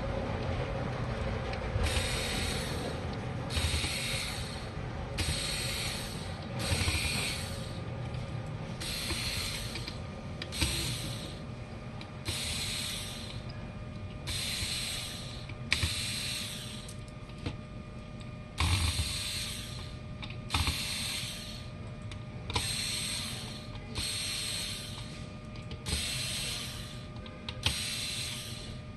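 A small mechanism whirring in repeated short bursts, each under a second long, about one every second and a half, over a faint steady hum.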